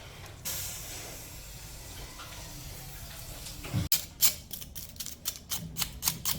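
A steady hiss, then, just before four seconds in, a sharp break and a quick run of short scraping strokes, about four or five a second: a knife scraping the charred skin off fire-roasted food.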